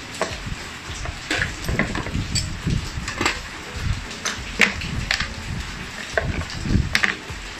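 Scattered clicks and knocks of hand tools and hard plastic being handled on a scooter: pliers put down and the plastic battery cover lifted off the under-seat compartment, with a steady hiss in the background.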